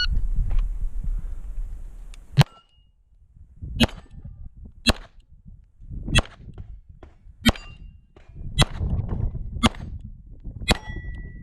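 Eight 9mm pistol shots from a Beretta 92, roughly one a second, fired at steel targets that clang and ring when hit. After the last shot a plate rings on steadily.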